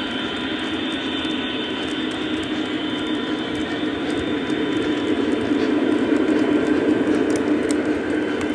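Lionel O-gauge model train running past on three-rail track: freight car wheels rolling with a steady rumble and whine. It gets louder about six seconds in as the Conrail SD70MAC locomotive comes by.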